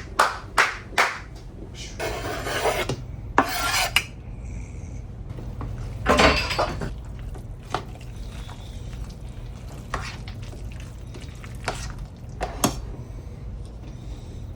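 A spoon stirring and scraping through potato salad in a bowl, with a quick run of clinks against the bowl in the first second, several scraping strokes after it, and scattered single taps later on.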